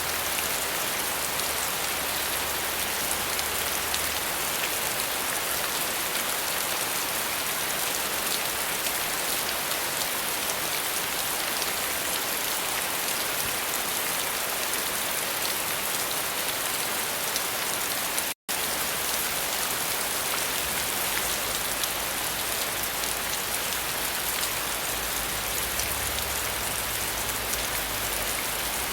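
Steady, dense rain falling, an even hiss of drops with no thunder, cutting out for an instant about two-thirds of the way through.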